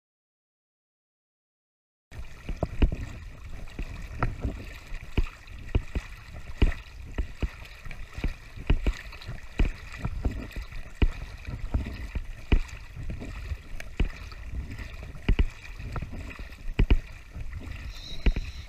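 Silent for about the first two seconds, then small waves lapping and sloshing against a camera at the waterline, with irregular sharp slaps of water against the housing several times a second.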